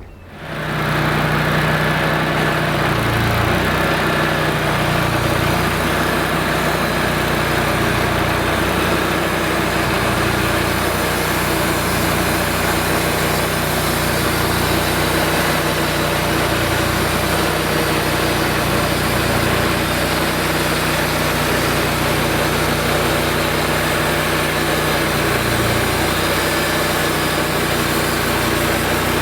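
Woodmizer LX150 portable band sawmill running, its engine coming up to speed within the first second and then holding a steady speed.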